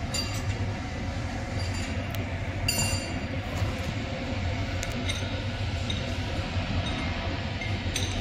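Common rail injector test bench running with a steady mechanical hum. Several short, sharp clicks are scattered through it, a cluster of them about three seconds in.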